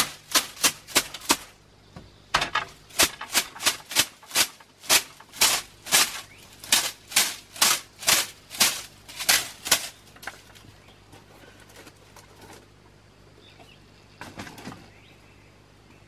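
A quick run of sharp scraping strokes against a woven bamboo wall, about two to three a second. They pause about two seconds in, stop about ten seconds in, and a short scrape comes again near the end.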